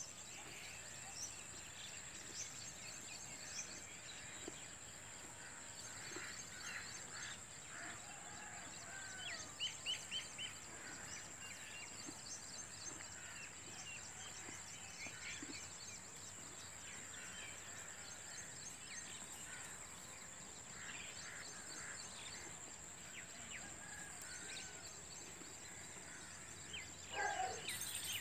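Rural outdoor ambience: small birds chirping on and off over a steady high-pitched hum, with a louder bird call near the end.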